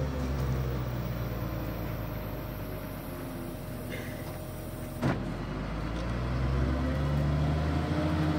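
Crane truck's diesel engine running steadily, driving the crane's hydraulics while it hoists a wrecked car; the engine speeds up again about six seconds in. A single sharp knock about five seconds in.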